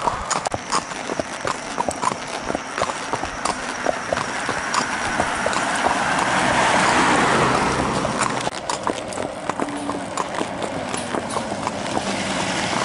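Hooves of walking horses clip-clopping on an asphalt road: the Belgian gelding and the horse carrying the camera. About halfway through, a passing car's tyre noise swells and fades under the hoofbeats.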